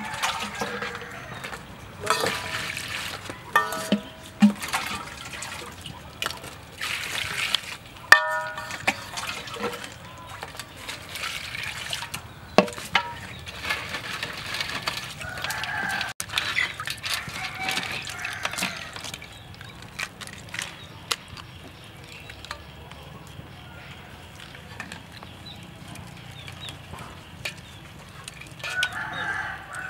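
Water splashing and sloshing in an aluminium basin as fish and then live crabs are rinsed and handled by hand. Chickens cluck and a rooster crows briefly about eight seconds in.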